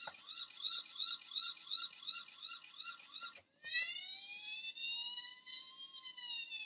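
Toy ambulance's electronic siren sound: a fast warbling yelp at about three pulses a second, then after a short break a slow wail that rises and then falls.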